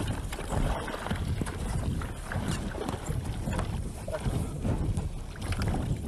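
Wind buffeting the microphone over sea water slapping against a small boat's hull, with a few short splashes as a hooked fish thrashes at the surface.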